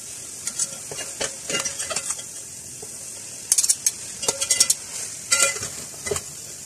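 Egg noodles and vegetables sizzling in a hot metal pot while being tossed with two metal spoons. A steady frying hiss runs under irregular scrapes and clinks of the spoons against the pot.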